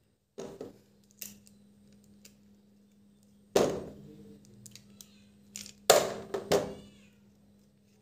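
Small plastic clicks and scrapes from handling an opened remote-control Beyblade and a screwdriver while prying its old battery loose. There are two short squeaky, voice-like sounds, one about midway and a louder one near the end, over a faint steady hum.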